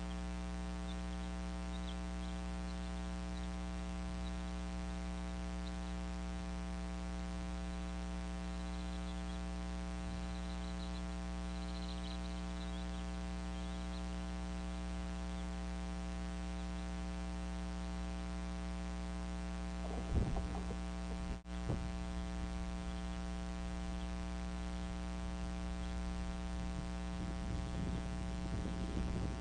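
Steady electrical mains hum in the nest camera's audio, with faint high chirps in the first half. About two-thirds of the way in there are a few rustles and knocks, and more rustling near the end, as the eagles move about on the stick nest.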